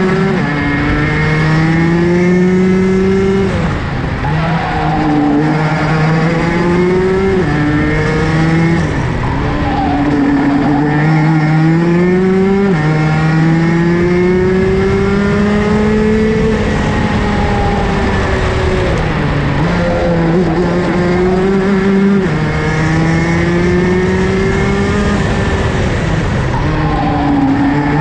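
Rotax DD2 race kart's 125 cc single-cylinder two-stroke engine at racing speed, heard onboard: its pitch climbs steadily for a few seconds at a time, then drops sharply as the driver comes off the throttle for the corners, over and over, with road and wind noise underneath.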